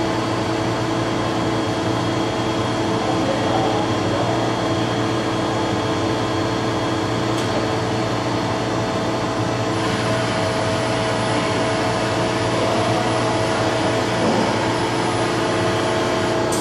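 Okuma MCR-B II double-column machining center running steadily during an automatic head-attachment change: a constant machine hum with several steady tones. A faint high whine comes in about ten seconds in.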